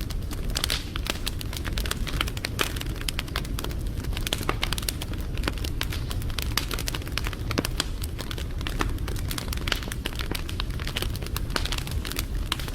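Wood fire burning, with many sharp crackles and pops over a steady low rumble.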